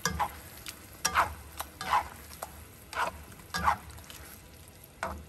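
A spatula stirring and scraping through a simmering tomato, beef and egg sauce in a honeycomb-textured stainless steel pan, in about six sweeps spaced under a second apart. The sauce is being stirred as it thickens with cornstarch slurry.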